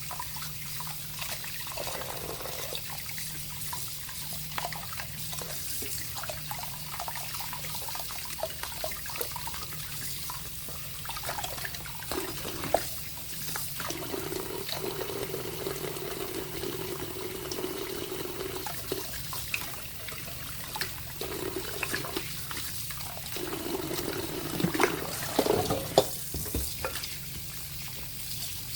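Tap water running and splashing into a sink as raw chicken drumsticks are washed by hand, with scattered knocks and clinks, two of them sharp and loud.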